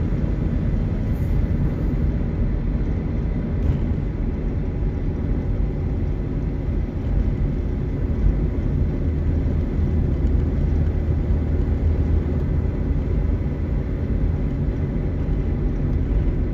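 Steady low rumble of road and engine noise heard from inside a car cabin while driving at highway speed.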